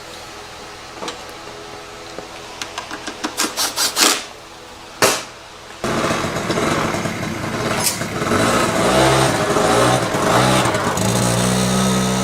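Honda Spree scooter's 49cc two-stroke engine being started after a carburetor clean: a run of quickening cranking pulses and two sharp loud pops, then it catches about six seconds in and keeps running, its pitch rising and falling.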